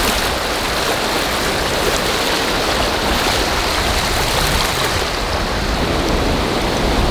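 Steady rushing of a stream's flowing water.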